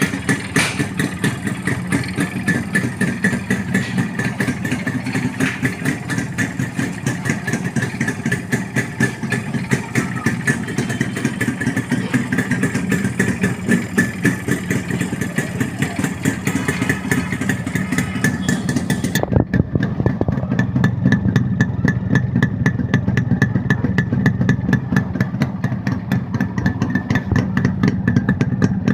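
Yamaha RX 100 two-stroke single-cylinder engine idling with a steady, rapid exhaust beat. About 19 seconds in, the sound cuts abruptly to another RX 100 running at a similar beat, heard duller and with less hiss.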